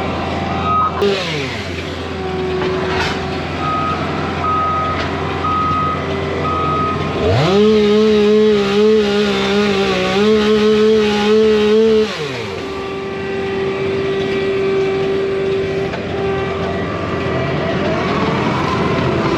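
Machinery engine running steadily. A reversing alarm beeps about four times, then an engine revs quickly to a high, steady pitch for about five seconds and drops back to idle.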